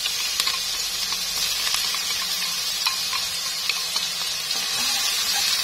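Minced garlic and shallots sizzling in hot cooking oil in a nonstick wok: a steady frying hiss, with a few light clicks of chopsticks and bowl.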